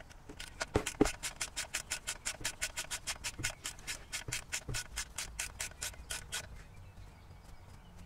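Socket ratchet clicking quickly and evenly, about seven clicks a second, as a sump plug is spun into the oil pan. The clicks stop about six and a half seconds in.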